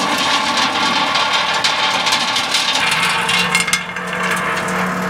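Electric vibrating garden sieve (Xava Garden-Master) running, with soil and stones clattering on its shaking screen. About three seconds in the clatter thins and a steady motor hum comes to the fore.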